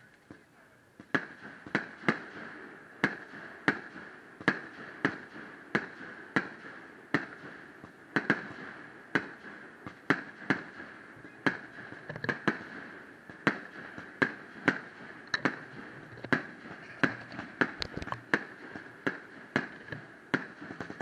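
Aerial firework shells bursting in a rapid string of sharp bangs, about two a second, starting about a second in. A steady high-pitched drone runs underneath.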